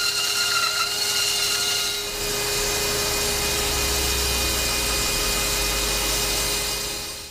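Small benchtop bandsaw running and cutting a block of sapele hardwood: a steady whine over hiss. The sound changes about two seconds in and fades out at the very end.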